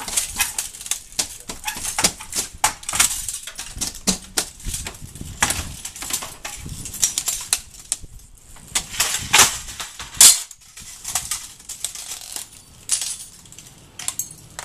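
Irregular clicks and knocks of window installation handwork, an old window frame being removed and a new vinyl window being fitted in its opening, with a couple of sharper knocks about ten seconds in.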